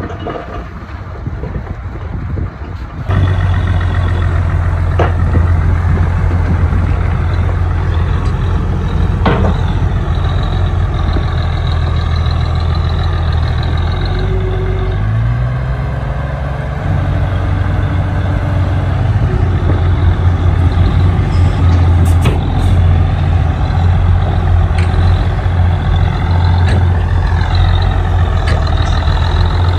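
Heavy construction machine's diesel engine running loud and steady. Its engine speed rises and falls briefly about halfway through, and a few sharp knocks sound over it.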